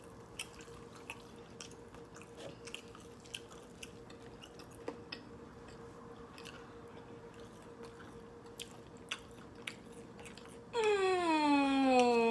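People eating chicken wings: faint wet chewing with small clicks and smacks, over a faint steady hum. Near the end a loud drawn-out voiced sound, a long hum or exclamation, slides down in pitch for about two seconds.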